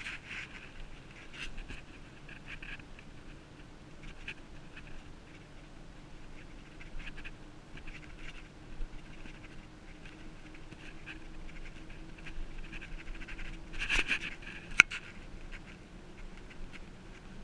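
Bicycle rolling down a paved road: a faint steady hum from the tyres with scattered small clicks and scratchy rattles from the bike and its mounts. A cluster of louder clicks comes about 14 seconds in, then one sharp knock.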